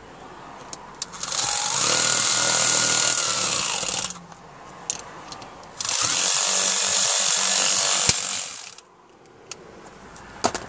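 Power drill driving screws in two runs of about two to three seconds each, the motor whining steadily under a loud grinding buzz, with a few light clicks between and after.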